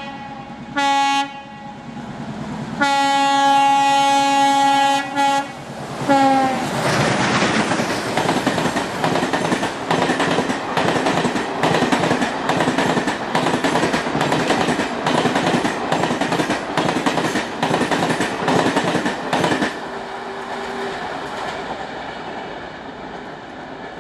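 ALCo WDG3a diesel locomotive horn: a short blast, a long blast of about two and a half seconds, and a last brief one about six seconds in that drops in pitch as the locomotive passes. Then the express's coaches rush past at speed with a rapid clatter of wheels over the rail joints for about thirteen seconds, fading away as the train recedes.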